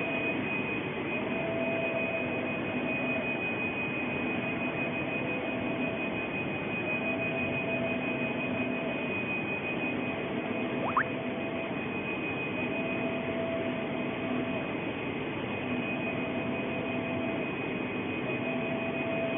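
UV flatbed printer running while printing: the print-head carriage's motor whines in repeated passes, on for about two seconds and pausing briefly about every three seconds, over a steady hiss and a constant high tone. A short rising whistle sounds once, about eleven seconds in.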